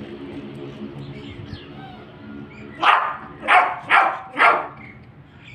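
Yorkshire terrier barking four times in quick succession, about two barks a second, in the second half.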